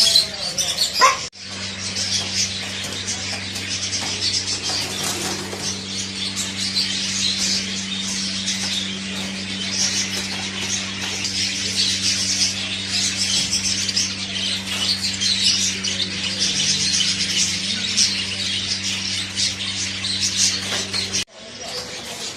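A dense chorus of many small caged birds chirping and twittering at once, over a steady low hum. The chorus cuts off abruptly near the end.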